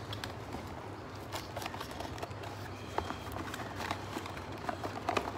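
Cardboard carton being handled and opened: scattered light taps, scrapes and knocks of the box and its insert, over a low steady hum.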